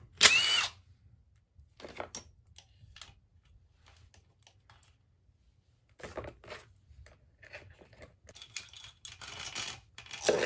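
A cordless impact driver runs briefly on a bolt in the ATV engine case just after the start. Light clinks and rattles of loose metal parts and tools follow, and near the end the steel cam chain rattles as it is pulled out of the engine.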